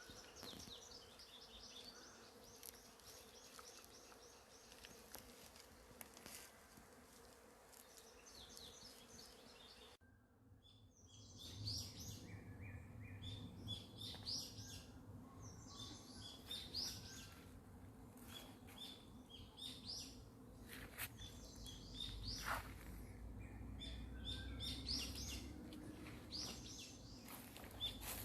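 Woodland birds chirping and singing. The first ten seconds hold a fast repeated high trill; after an abrupt change about ten seconds in, many short chirps and calls overlap.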